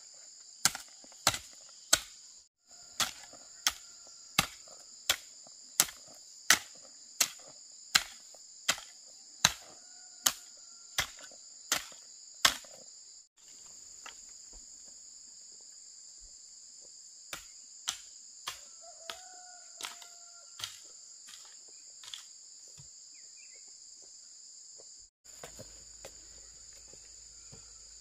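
Steady high-pitched insect chorus with a run of sharp, evenly spaced strikes, about three every two seconds, through the first half. A shorter run of fainter strikes follows a little past the middle.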